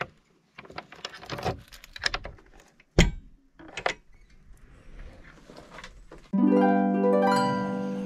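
A bunch of keys jingling and clicking in a backhoe's cab door lock, with a sharp knock about three seconds in. Near the end, background music of plucked-string notes comes in suddenly and is the loudest sound.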